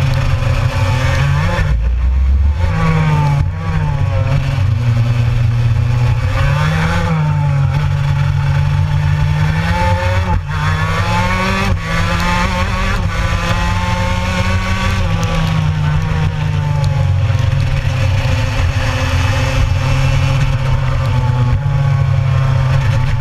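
Gilera kart engine heard from onboard at close range, running hard and changing pitch as the driver comes off and back on the throttle, with several quick dips and rises in the first half and steadier running later.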